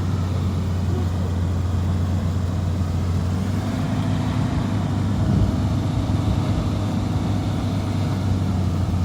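Off-road vehicle's engine running with a steady low drone, mixed with a rough noisy haze.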